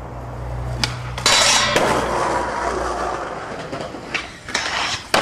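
Skateboard sounds: a sharp knock, then a harsh scrape about half a second long, and a few more knocks near the end, over a low steady hum.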